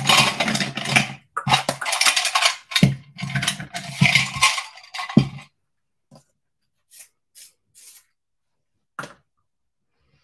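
Sharp purple colouring pencil scratching on stamped cardstock close to the microphone: quick back-and-forth shading strokes in bursts with short breaks for about five seconds. Then a few faint clicks and a single sharper tick near the end.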